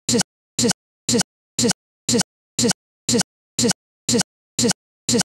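A short fragment of sound stuck in a loop, repeating about twice a second with silence between each identical burst: a digital playback glitch, the audio stuttering on a frozen recording.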